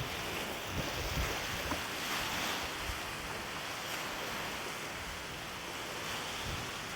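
Wind-driven waves washing against a lake shore in a steady hiss, with gusts of wind buffeting the microphone in uneven low rumbles.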